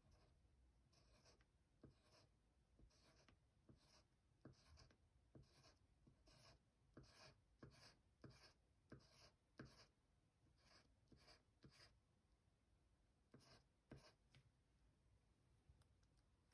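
Faint scratching of a graphite pencil on paper in short, quick strokes as small curved shapes are drawn, with a brief pause partway through. The strokes stop a couple of seconds before the end.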